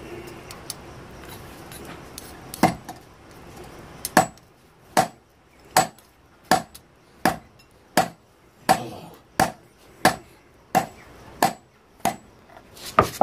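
A series of sharp knocks with a short metallic ring, one a little under three seconds in, then a steady run of about four every three seconds.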